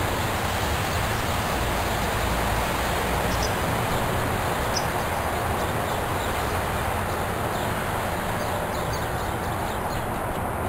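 Steady rushing outdoor background noise, with a few short high bird chirps about three and five seconds in and faint chirps near the end.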